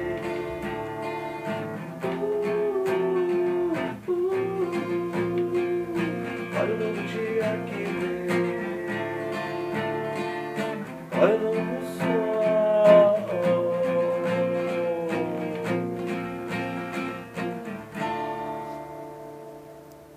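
Guitar-led band music without words, fading out near the end.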